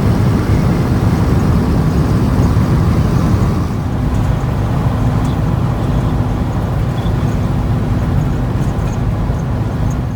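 Vehicle driving at steady speed: a loud, steady low rumble of road noise with a faint constant hum.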